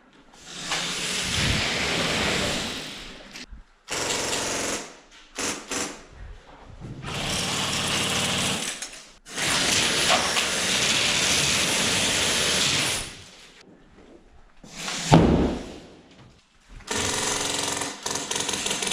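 Airsoft guns firing on full auto in a series of long bursts, each about one to four seconds long, with short pauses between them.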